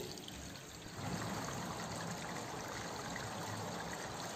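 Steady rushing background noise with a watery sound, a little louder from about a second in.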